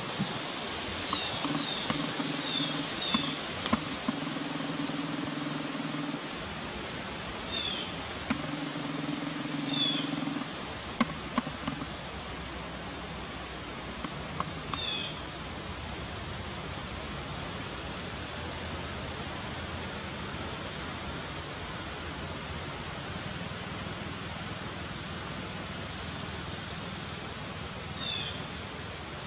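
Steady outdoor hiss with a small bird chirping now and then: a quick run of four short high chirps near the start, then single chirps spaced several seconds apart. A low hum comes and goes in the first ten seconds.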